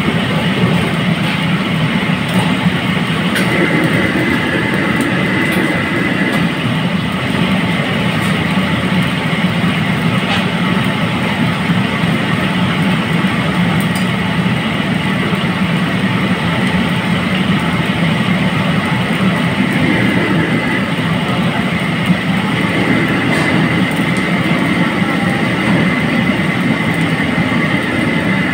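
Steady roar of a commercial wok station: the gas wok burner under a wok of oil and the kitchen exhaust running together, an even, unbroken noise.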